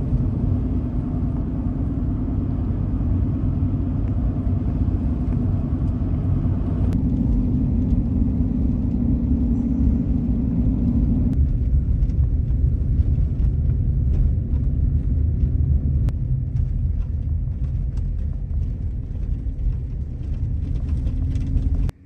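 Steady low rumble of a pickup truck driving on a snowy road, heard from inside the cab: engine and road noise with a hum, changing in character about seven and about eleven seconds in.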